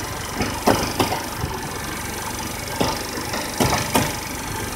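Scooter engine with a 100cc big bore kit idling at a raised idle, because it won't idle low since the big bore went in. A few short sharp pops or knocks stand out over the steady running.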